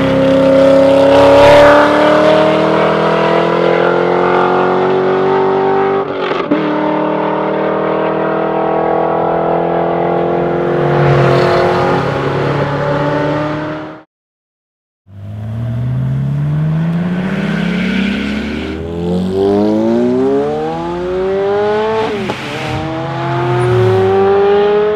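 Geiger-tuned Corvette Z06's 7.0-litre V8 exhaust under hard acceleration, its pitch climbing steadily through a long pull. It cuts out for about a second halfway through, then comes back in several quicker rising sweeps as the car pulls up through the gears.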